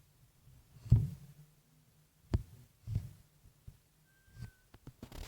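A few dull, low thumps at irregular intervals, with a brief faint whistle-like tone a little after four seconds in.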